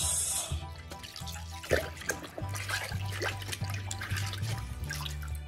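Water splashing and sloshing as a toy monster truck is pushed by hand through water, over background music.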